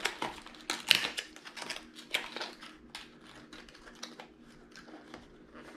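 Plastic lure packaging being pried open by hand: a run of small clicks and crackles, busiest in the first few seconds and thinning out toward the end.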